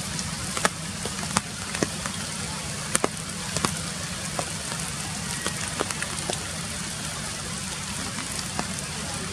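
Steady rain falling through forest canopy, with separate louder drops striking close by at irregular moments, about one a second.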